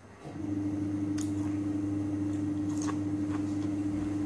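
A steady, level machine hum, one constant tone over a low drone, starts about a third of a second in and holds. A few faint clicks sound over it.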